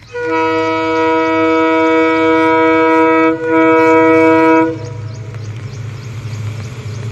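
Diesel locomotive's two-tone air horn sounding from an approaching train: one long blast of about three seconds, a brief break, then a shorter blast. After it stops, the low rumble of the oncoming locomotive's engine grows louder.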